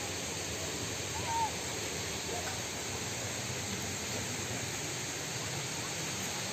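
Steady outdoor background hiss, with one short, high call about a second and a half in.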